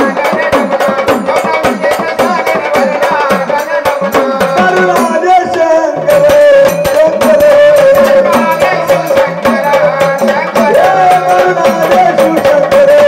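Marathi gondhal folk devotional music: a fast, steady drum and rattle rhythm under a long held note, with a melody line gliding over it.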